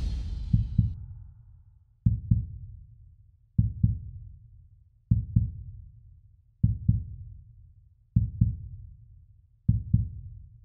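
Heartbeat sound effect in a soundtrack: a low double thump, like a lub-dub, repeating slowly about every one and a half seconds. The tail of a deep impact fades out at the start.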